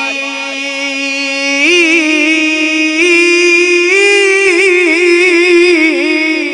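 A solo voice singing a Punjabi Sufi kalam, holding long drawn-out notes with wavering ornaments. The held note steps up in pitch a little under two seconds in.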